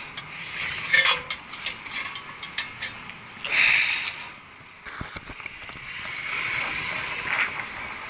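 Clicks, clanks and scraping of a worker climbing down a steel ladder and stepping across a roof onto metal grating, with a short loud rushing burst about three and a half seconds in and a steady hiss near the end.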